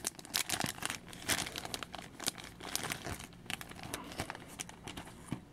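Packaging crinkling and crackling in quick, irregular bursts as it is handled and pulled open.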